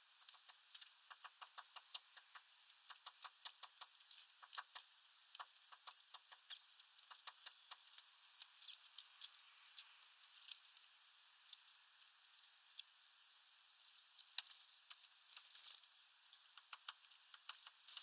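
Faint, irregular tapping and clicking of great tits pecking at seed through a hanging mesh feeder bag, several taps a second, with a lull of a few seconds midway.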